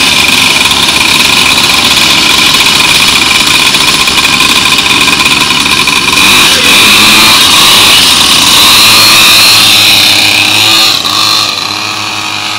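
Small 49cc two-stroke pocket-bike engines on a motorized drift trike, running loud close by. The level drops shortly before the end.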